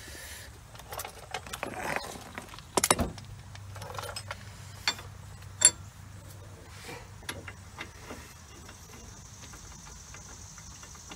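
Metal hand tools and parts clinking and knocking: scattered clicks and taps, the loudest cluster about three seconds in and a sharp clink in the middle. A faint steady hiss comes in for the last few seconds.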